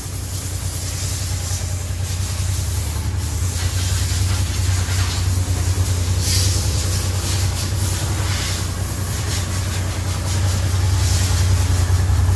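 Honda NT700V Deauville's V-twin engine idling steadily with a low, even drone. Brief swells of hiss come in around the middle and again near the end.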